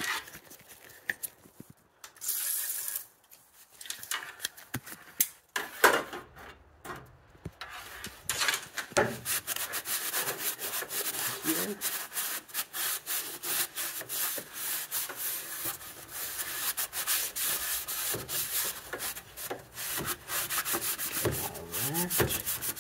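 Shop rag wiping and scrubbing grimy engine-bay surfaces with quick, repeated back-and-forth strokes, steady for the second half; a brief hiss comes a couple of seconds in.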